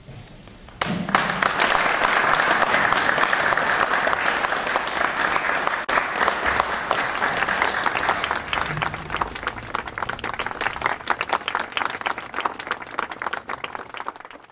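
Audience applauding at the end of a lecture: the clapping starts about a second in, full and dense at first, then thins into more separate claps and fades near the end.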